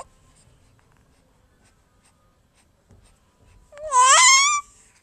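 A baby's single high-pitched squeal of about a second, near the end, sliding up in pitch and then held.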